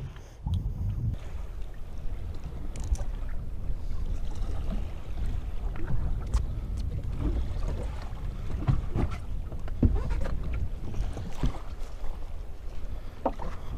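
Wind rumbling on the microphone aboard a boat on open water, with scattered light knocks and clicks.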